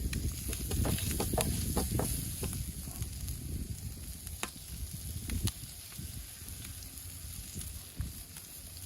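Butter sizzling in a hot pan, with scattered crackles and pops that are thickest in the first few seconds and thin out toward the end.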